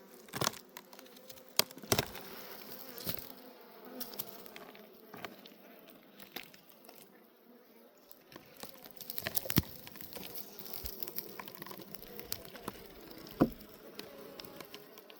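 Honeybees buzzing steadily around a log hive, a low hum with scattered sharp clicks and cracks over it.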